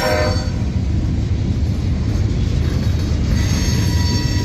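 Freight train cars rolling past with a steady low rumble of steel wheels on rail. A thin, high wheel squeal fades out in the first half-second and comes back about three seconds in.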